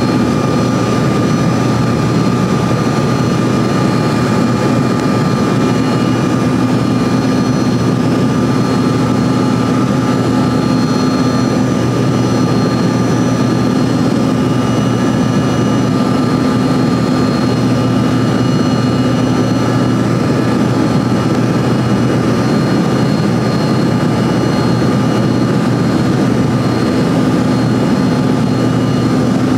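Steady cabin noise inside an Embraer ERJ-135 climbing out after takeoff: its two rear-mounted Rolls-Royce AE 3007 turbofans running at climb power, with a low hum and a few steady whining tones over the rushing air.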